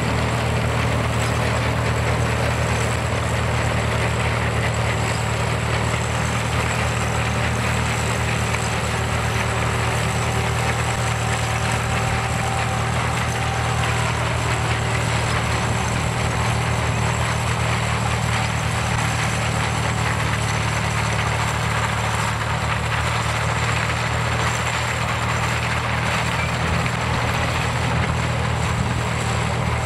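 Vintage International tractor engine running steadily under load while pulling a working grain binder, with the binder's mechanism clattering underneath.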